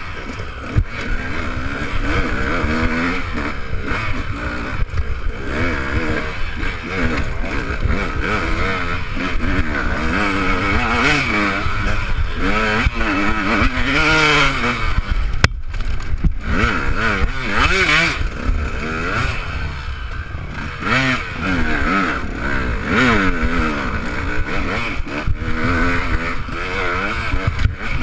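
Enduro dirt bike engine revving up and down constantly as the bike is ridden off-road, its pitch rising and falling with the throttle over a heavy low rumble. The engine drops off briefly about halfway through, then picks up again.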